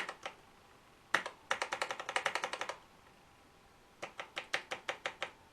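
Keystrokes on a restored 1984 Tatung Einstein computer keyboard: a couple of single key clicks, then a quick run of about a dozen keystrokes, and a second run of about nine near the end.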